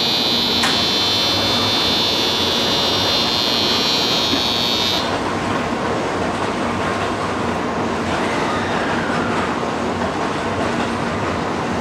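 Electric platform departure signal ringing loudly and steadily, then cutting off about five seconds in: the end-of-boarding signal before the Shinkansen's doors close. A steady hum from the train standing at the platform carries on underneath and after.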